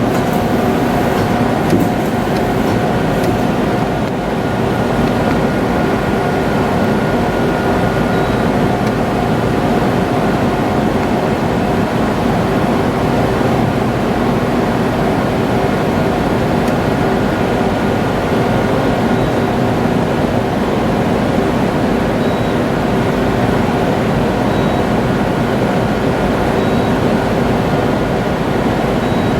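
Okuma ES-L10 CNC turning center lathe running under power: a steady mechanical hum with several constant tones over an even noise.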